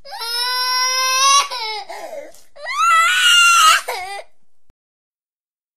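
High-pitched wailing cry like a baby's, two long held wails, the second a little higher, then it cuts off to silence.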